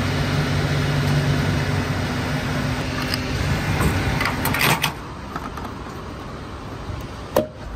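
Petrol pump dispenser humming steadily while fuel is pumped, stopping about three seconds in. Then a few sharp metal clunks as the fuel nozzle is handled, and a single click near the end.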